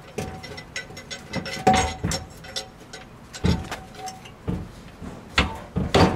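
Irregular clanks and knocks from a Hyundai Porter 2 truck's exhaust pipe and muffler being pulled and worked loose from underneath, several with a short metallic ring, along with cloth rustling close to the microphone.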